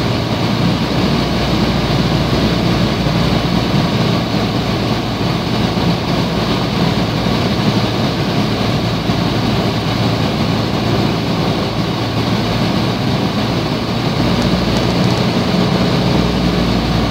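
Piper PA-28 Cherokee's piston engine and propeller droning steadily, heard inside the cabin together with the rush of air, as the aircraft comes down over the runway and rolls along it after landing.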